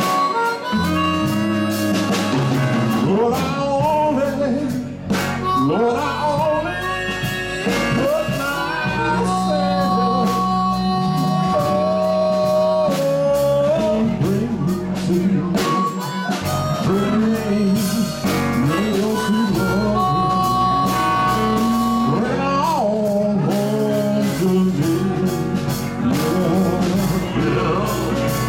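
Live blues band playing: a harmonica wails long held notes that bend in pitch, over electric guitar, electric bass and drums.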